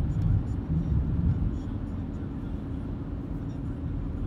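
Steady low rumble of a car's engine and tyres on a paved road, heard from inside the cabin, with a few faint ticks in the first second and a half.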